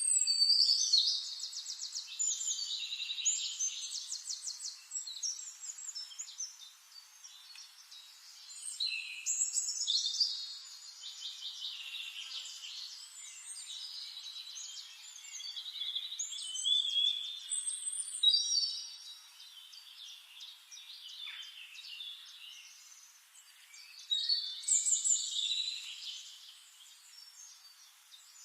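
Songbird singing in a forest: long, varied phrases of rapid high trills and warbles, a new phrase starting about every eight seconds, four phrases in all.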